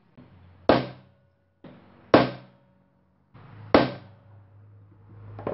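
Claw hammer striking a steel centre punch set on a small metal plate: three sharp metallic blows about a second and a half apart, each with a brief ring, then a lighter tap near the end. The punch is marking a hole centre on the scribed plate before drilling.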